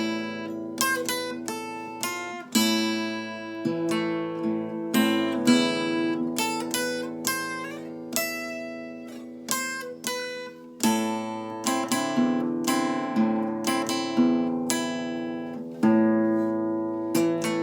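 Acoustic guitar playing the melody of an enka song, a run of plucked notes over ringing bass notes.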